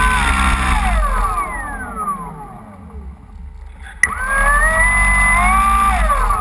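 Electric motor and propeller of a radio-controlled Cessna 185 floatplane model taxiing on water. The whine falls in pitch as the throttle comes back and fades. About four seconds in there is a sharp click, then the whine rises again, holds for about a second and falls away near the end.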